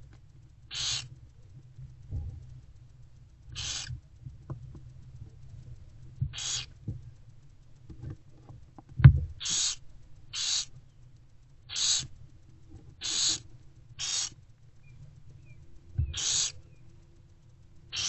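Barn owlets making harsh food-begging hisses (the 'snoring' call of barn owl chicks) while being fed. There are about nine short hisses, each about half a second long, coming every one to three seconds. A single sharp knock about nine seconds in is the loudest sound.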